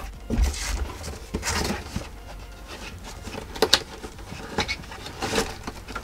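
Cardboard packaging being handled: scattered light scrapes, taps and rustles of the box's inner flaps, with a handling rumble in the first second. Near the end, a few crinkles of the plastic bag wrapped around the charging adapter.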